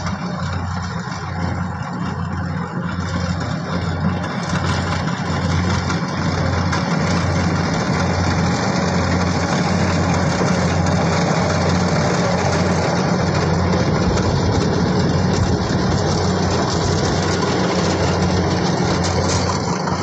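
Kubota DC70 combine harvester's diesel engine running steadily under load as it cuts and threshes rice, with a steady low hum and mechanical clatter; it gets louder about five seconds in as the machine draws near, then holds steady.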